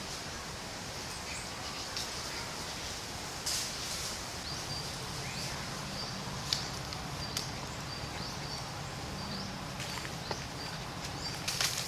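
Outdoor ambience: a steady hiss with a faint, short, high chirp repeating every second or so, and scattered sharp clicks and rustles.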